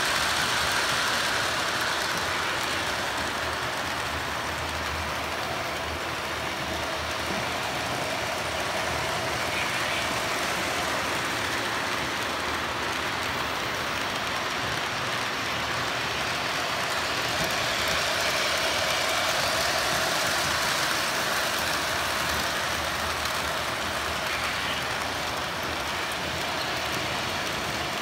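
Electric model trains running on a layout's metal track: a steady rolling rumble and motor hum, with small swells as trains pass nearby.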